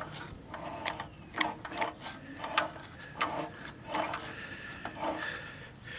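The small engine of a 1950s Toro Sportlawn reel mower being turned over, with irregular clicks and grinding from inside, one or two a second. The owner puts the grinding down to a dry, rusty camshaft.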